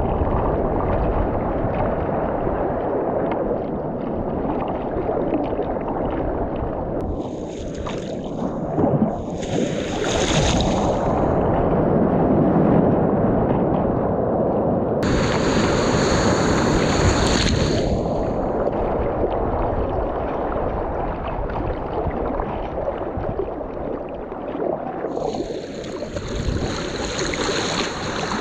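Ocean surf rushing and churning, with wind buffeting the microphone. Four louder hissing surges of spray come and go, the longest lasting about three seconds.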